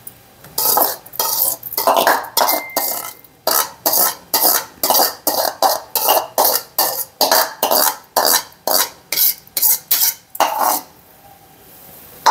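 Steel ladle scraping and knocking against a bowl over and over, about two or three strokes a second, as boiled sabudana is scraped out of it into the milk in a kadhai. The strokes stop about a second before the end.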